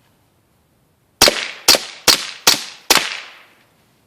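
Five quick shots from a suppressed .22LR Smith & Wesson 22A pistol through an SWR Spectre II suppressor, firing Federal bulk ammunition, starting just over a second in. The shots come about 0.4 s apart, each a sharp report with a short fading ring.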